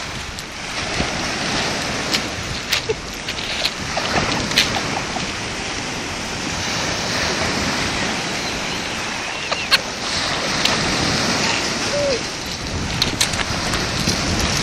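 Sea surf breaking and washing up a pebble beach, a steady rushing noise, with wind on the microphone and a few sharp clicks.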